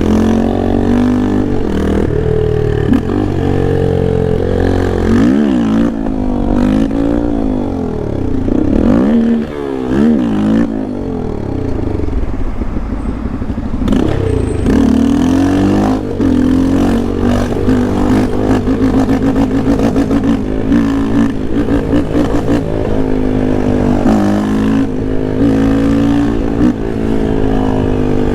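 Yamaha Lander 250's single-cylinder four-stroke engine under hard riding, its pitch rising with each burst of throttle and dropping at each shift or roll-off, again and again. The second half has longer steady cruising stretches.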